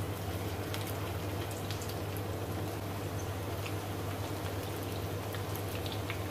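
Oil sizzling steadily as batter-dipped potato pinwheels shallow-fry in a pan, with a few faint pops and ticks and a steady low hum underneath.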